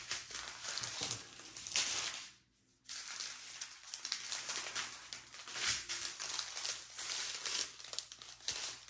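Small plastic bags of diamond-painting drills crinkling as they are handled and laid down on the canvas, on and off, with a short silent gap about two and a half seconds in.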